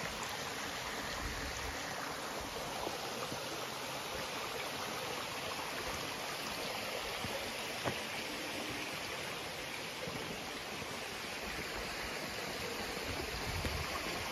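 Steady rush of a stream's water running through its rock pools, with one short click a little past the middle.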